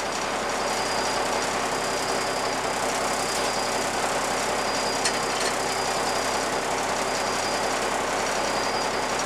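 A bus's diesel engine running steadily at idle, left running in the hope that it works air out of the fuel system after a loss of prime.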